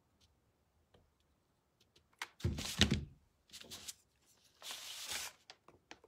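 A heavy cordless Ryobi hot glue gun is set down on a paper-covered table with a thunk about two and a half seconds in, followed by light clicks of thin wooden pieces being handled and a short scraping rustle near the end.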